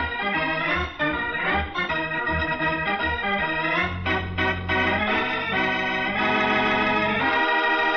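Organ music for the show's closing theme: quick-moving chords over a pulsing bass, settling into long held chords about halfway through.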